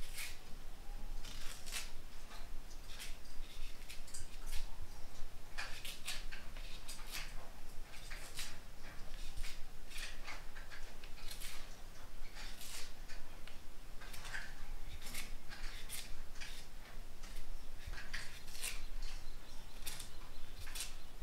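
Kitchen knife peeling the skin off green bananas: short scraping cuts, about one or two a second, with brief gaps between them.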